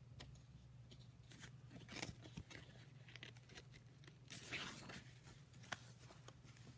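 Near silence with faint rustles and clicks of paper being handled; about four and a half seconds in, a picture-book page is turned with a short rustle, followed by a sharp little click.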